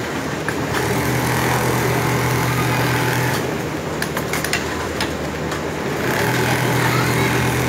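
Large-format programmable pattern sewing machine stitching fabric held in a template, its motor and needle running with a steady hum that eases off for a few seconds midway and then picks up again.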